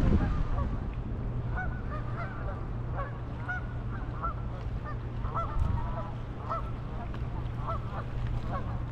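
Canada geese honking, many short calls in quick succession, over a low steady rumble.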